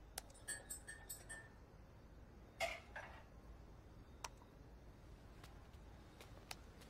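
Sparse, faint clicks and light clinks over quiet room tone. A small cluster comes about a second in, and the loudest click comes about two and a half seconds in.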